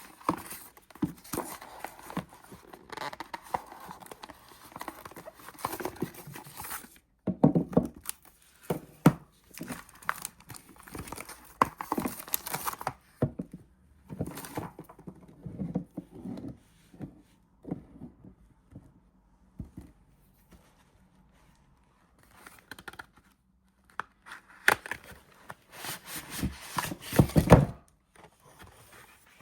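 Soap bar wrappers being torn open and crinkled by hand: dense crackling and tearing for the first dozen seconds, scattered handling noises and a near-quiet spell in the middle, then another loud bout of crinkling near the end.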